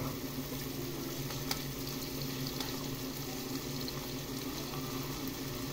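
Chicken pieces frying in a pan with a steady sizzle, while a spoon stirs in a little red sauce. A low steady hum runs underneath, and the spoon makes a few faint clicks against the pan.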